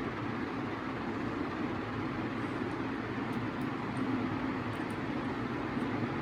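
Steady background noise, strongest low down and unchanging, with a few faint light ticks over it in the second half.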